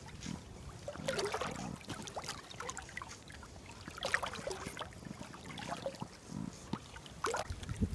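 Lake water lapping and trickling against a float tube, with irregular small splashes and drips.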